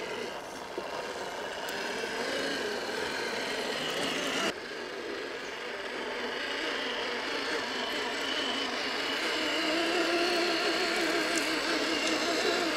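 Electric motor and gearbox of a 6x6 scale RC truck whining as it crawls through mud and water, the pitch wavering up and down with the throttle. The sound changes abruptly about a third of the way in.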